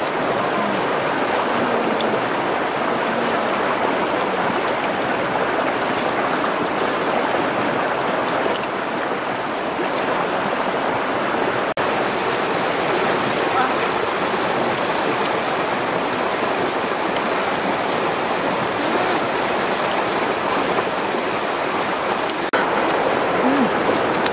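Shallow river flowing over rocks: a steady rushing of water.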